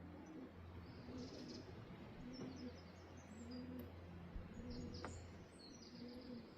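Pigeons cooing, a low coo repeated over and over, with small birds chirping high above and a faint steady low hum underneath.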